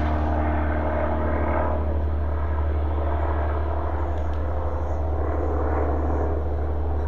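A steady low mechanical drone at an unchanging pitch, like a machine or engine running at constant speed.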